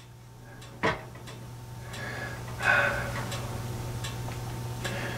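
Hands adjusting a weighing scale: a sharp click a little under a second in, then softer scraping and clicking handling sounds, over a low steady hum.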